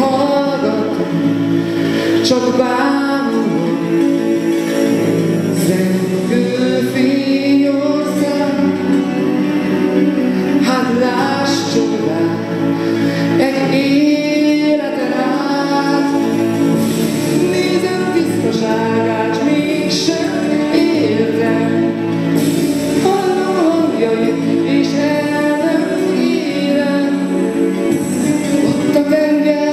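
A man singing a song into a handheld microphone over musical accompaniment.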